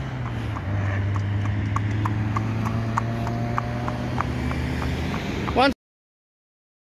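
Horse's hooves clopping on tarmac at a walk, about three steps a second, over the steady hum of a vehicle engine. Near the end comes a short, loud rising sound, and then the sound cuts off to silence.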